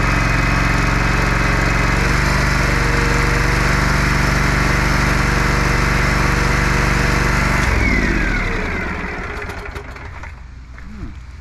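Vehicle engine running steadily, then switched off about eight seconds in, its tone falling away as it winds down, followed by a few light clicks.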